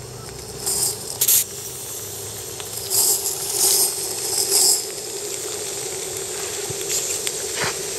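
Live-steam model of a Bavarian S 2/6 locomotive hissing steam as it gets under way. The hiss comes in several loud bursts in the first five seconds and two fainter ones near the end, over a steady hum.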